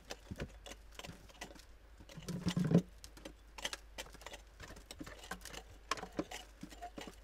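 Prospector's pick chipping and scraping at a gravelly clay bank, with irregular clicks and knocks of loosened dirt and small stones falling, loudest about two and a half seconds in.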